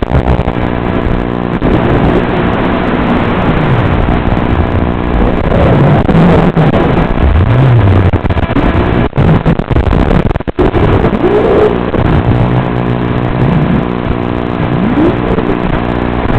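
FPV quadcopter's brushless motors and propellers (BrotherHobby 2205 R2) whining, the pitch rising and falling with the throttle. The sound briefly cuts out twice, about two-thirds of the way through.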